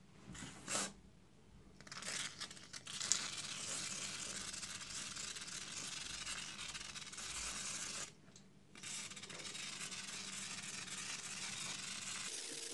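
Aerosol can of carburetor foam cleaner spraying onto a plastic coolant reservoir: a steady hiss in two long bursts with a short break about eight seconds in, after a few light handling taps at the start.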